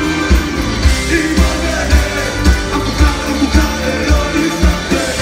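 Rock band playing a song with a sung vocal over a steady kick drum beating about twice a second.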